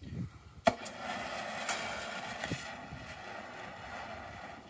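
Oxyacetylene brazing torch lit with a sharp pop, then hissing steadily as its flame burns.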